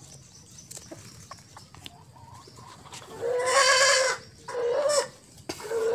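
An animal calling three times: one long, wavering call about three seconds in, then two shorter calls.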